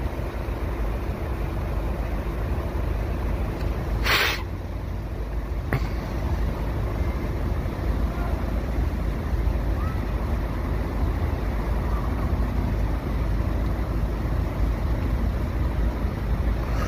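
Road traffic running past with a steady low rumble and wind buffeting the microphone; a short, sharp hiss about four seconds in.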